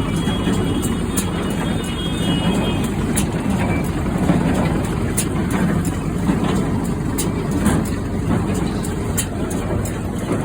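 U650M tractor's diesel engine running steadily, driving a John Deere 342 hay baler, with a sharp click repeating about every two seconds.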